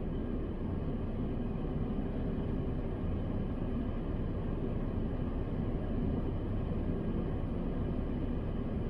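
Steady low rumble and hum inside a car's cabin.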